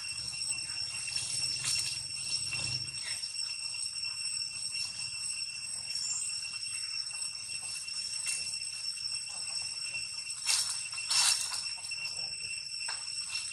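Steady high-pitched ringing drone of insects in the trees, holding at a few fixed pitches throughout. Two short, sharp, louder sounds break in about ten and eleven seconds in.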